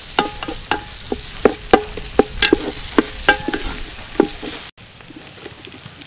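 Chilli curry paste and aromatics sizzling in hot oil in a metal pot while a wooden spoon stirs them, knocking against the pot many times with short ringing clanks. After a brief break about three-quarters through, the sizzle is quieter and the knocks thin out.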